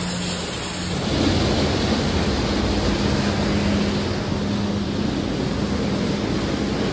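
Water rushing and churning in a sewage pump station's wet well as it is washed out with a high-pressure hose, over a steady machine hum. The rushing gets louder about a second in.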